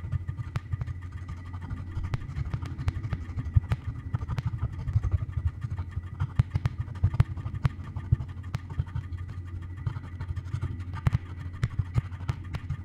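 Experimental improvised music: a dense low rumble that churns with fast, uneven pulsing, sharp clicks scattered throughout, and a thin steady high tone.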